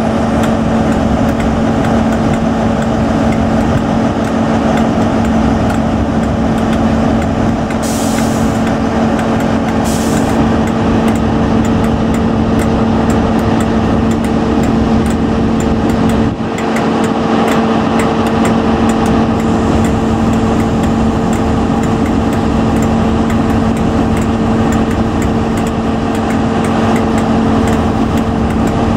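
Diesel engine of a Class 43 HST power car running at a steady pitch with an even drone, and two short hisses of air about eight and ten seconds in.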